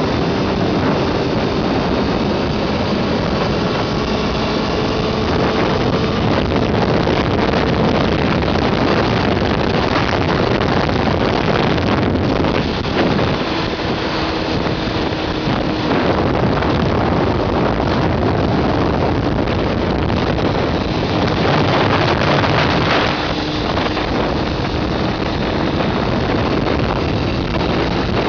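Heavy wind rush on the microphone at road speed, with the Honda CBR600F4i's inline-four engine running underneath, its note shifting up and down in pitch a few times.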